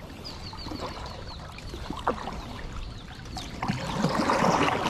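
Floodwater sloshing and splashing, louder and rougher near the end, with a quick run of high, falling chirps near the start.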